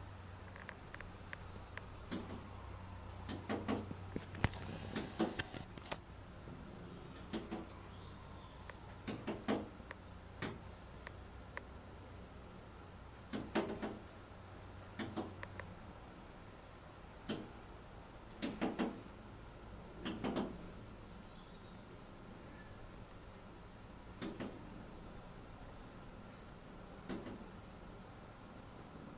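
Long-tailed tits calling: short, thin, very high notes in quick little runs, with some slightly lower down-slurred notes among them. Irregular dull knocks every few seconds are the loudest sounds.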